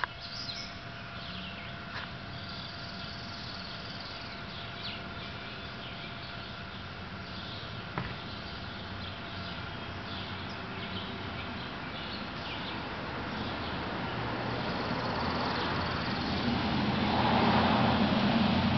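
Small birds chirping in the background, with a car passing on the street growing louder over the last few seconds.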